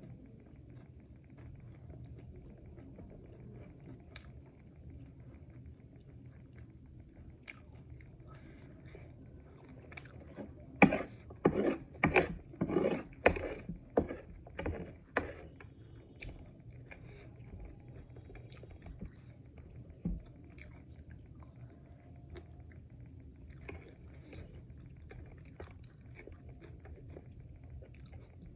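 Close-up eating sounds: quiet chewing and small clicks throughout, with a run of about ten loud, sharp crunches in the middle as crisp fried momo is bitten and chewed. A faint steady low hum runs underneath.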